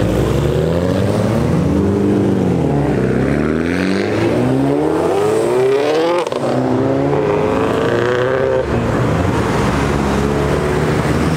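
Tuned car engines revving hard as cars pull away one after another, the pitch climbing and falling several times. Among them a turbocharged flat-four Subaru WRX sedan launches hard with its tyres smoking about six seconds in.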